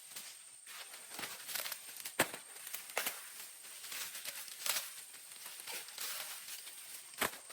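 Dry crop leaves rustling and crackling as they are handled, with sharp snaps about two seconds in and again near the end.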